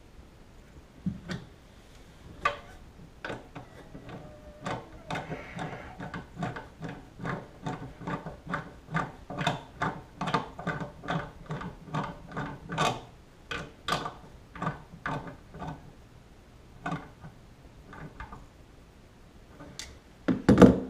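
Socket ratchet clicking in a steady run of short strokes, about two to three clicks a second, as the nut on a toilet's floor bolt is tightened; a few single clicks come before and after, and a louder knock comes near the end.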